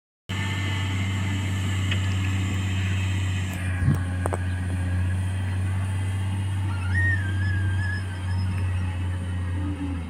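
Wheel loader's diesel engine running steadily at a distance as the machine levels sand, a constant low hum. A short, high, wavering tone sounds about seven seconds in.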